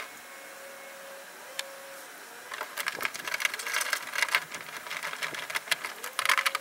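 Socket ratchet clicking rapidly while driving in 10 mm bolts to fasten the grille mounting brackets, starting about two and a half seconds in.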